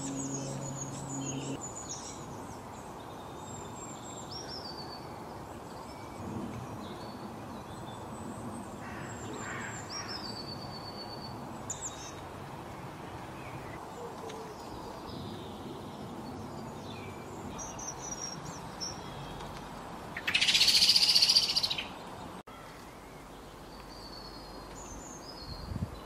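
Small songbirds chirping and calling in short high notes on and off over a steady outdoor background hiss. A low steady hum is there for the first second or so, and about twenty seconds in a loud rushing burst of noise lasts about a second and a half.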